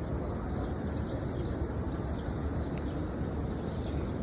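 Small birds chirping over and over in short, high notes, about two or three a second, over a steady low background rumble.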